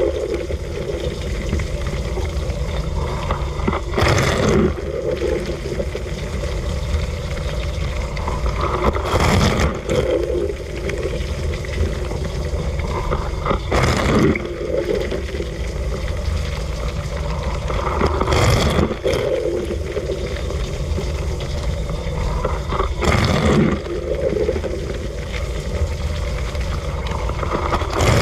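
Dishwasher running its wash cycle: a steady pump hum under spraying, splashing water, with a louder rush of spray about every five seconds as the rotating spray arm comes round.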